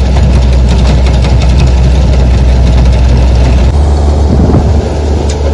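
A heavy engine running steadily and loudly, its sound changing abruptly a little over halfway through.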